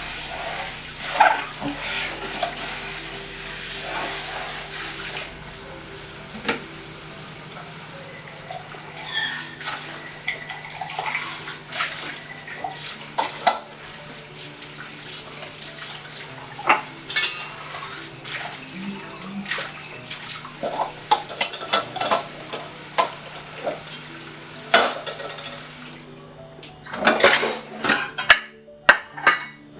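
Tap water running into a sink while pots, a frying pan and utensils are washed, with frequent clinks and clatters of metal and dishes. The water shuts off about 26 seconds in, and the clatter of dishes goes on. A low steady music drone plays underneath.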